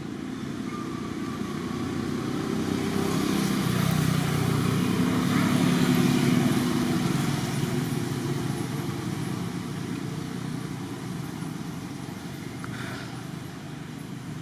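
A motor vehicle passing by, its low running sound growing louder to a peak about six seconds in and then fading away.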